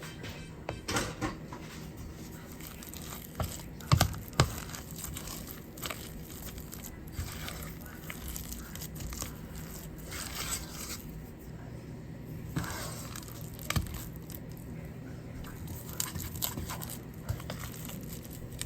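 Kitchen utensils scraping and knocking against a pot and dishes while serving mashed potatoes, with scattered clicks and two louder knocks about four seconds in, over a faint steady hum.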